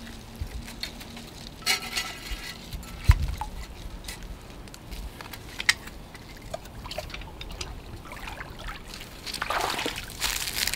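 Shallow lake water splashing and trickling as a trap set and its stake rod are pulled up out of it, with scattered clinks and knocks of metal. The splashing grows louder near the end.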